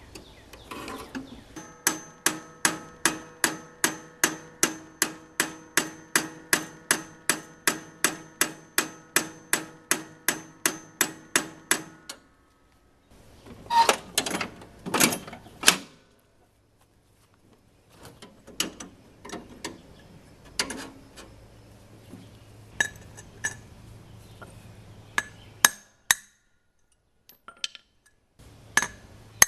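A hammer striking a piece of steel that rings: a steady run of about three blows a second for some ten seconds, then a quick cluster of blows, then scattered lighter knocks.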